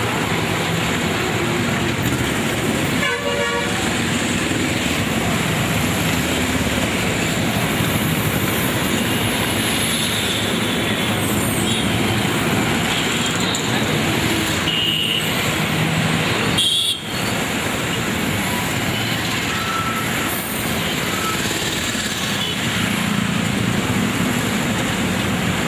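Road traffic from a convoy of small trucks moving on a city road: steady engine and road noise, with short horn toots, one about three seconds in.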